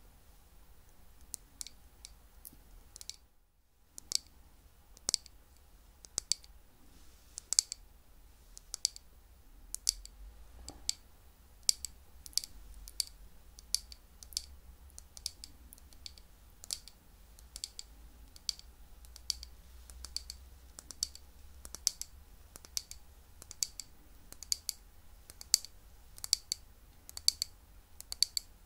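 Close-miked crunchy chewing of crisp sweets: sharp crackles, irregular at first with a short pause about three seconds in, then settling into a steady chewing rhythm of about two crunches a second.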